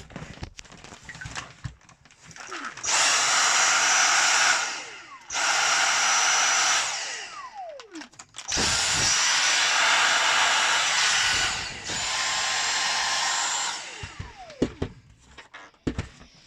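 Dyson V6 Trigger Pro cordless handheld vacuum cleaner switched on four times with its trigger, each run a steady high whine and rush of air that starts abruptly and winds down with a falling pitch when released. The last run is quieter than the others.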